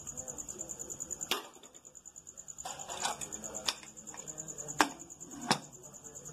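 Metal spatula scraping and tapping against a pressure cooker while chana dal is stirred, then two sharp metallic knocks near the end as the cooker lid is set on. A cricket trills steadily throughout.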